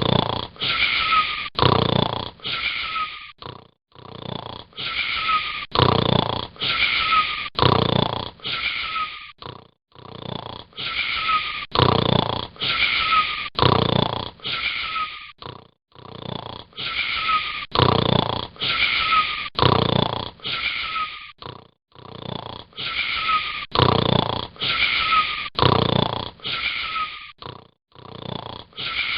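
Snoring, coming in regular runs of five or six quick snores about every six seconds with a short pause between runs. Each snore carries a high whistle that falls slightly in pitch.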